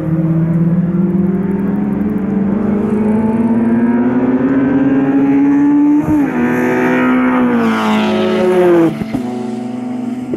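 Nissan 300ZX Z32's twin-turbo V6, running water-methanol injection without intercoolers, accelerating hard down a straight. Its note climbs steadily, dips briefly about halfway, climbs again, then drops off sharply near the end as the throttle is lifted, leaving a lower steady note.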